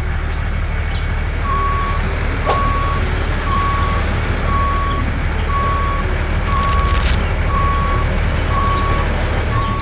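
Truck engine running with its reversing alarm beeping at an even pace, roughly one beep every three-quarters of a second, starting about a second and a half in. There is a brief crackle around seven seconds in.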